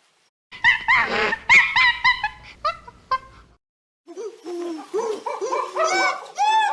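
High-pitched animal calls: a run of short squealing yelps that rise and fall in pitch, in two bouts with a brief pause about halfway through.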